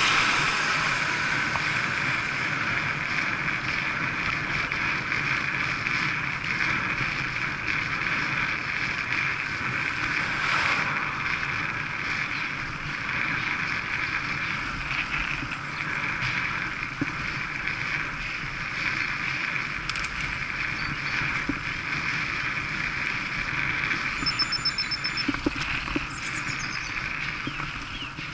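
Steady rush of wind over the microphone and tyre hum on tarmac from a road bike ridden at speed. A car passes close alongside at the very start, the loudest moment.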